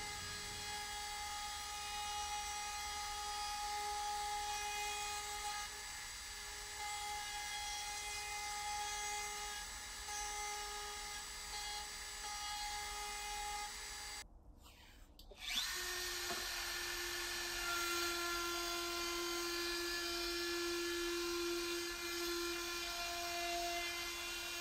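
Table-mounted router running with a steady high whine as its bearing-guided bit profiles the edge of a plywood cutting board. The sound drops away for about a second a little past halfway, comes back with a sharp click, and runs on at a slightly different pitch.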